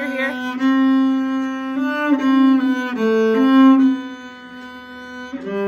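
Solo cello played with the bow: a slow line of held notes, moving from one pitch to the next every half second to a second or so, dropping to a lower note near the end.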